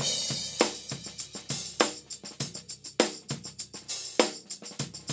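Intro music with a drum kit playing a steady beat of snare, hi-hat and cymbal hits.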